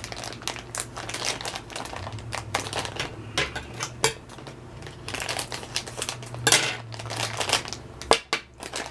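Packaging of a replacement charger cord being torn open and handled, an irregular run of plastic crinkling and rustling with a few sharper crackles near the end.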